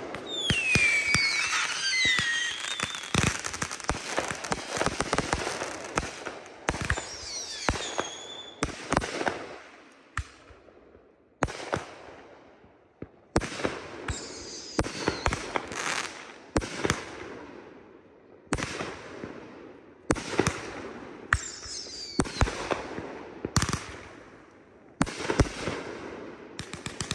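Consumer 1.4G aerial fireworks firing: a fast run of launches and bursts with crackle and a few falling whistles, a short lull about ten seconds in, then shots going off about once a second, another brief pause, and a fresh run near the end.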